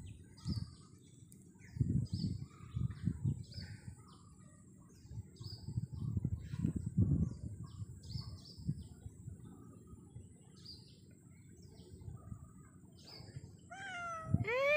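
Small birds chirping over and over in short high calls, with a few low dull thumps. Near the end a domestic cat starts to meow, a call that rises and falls in pitch.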